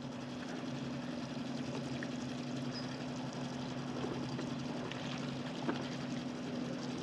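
A boat engine running at a steady low hum, with a faint wash of water and a few light ticks.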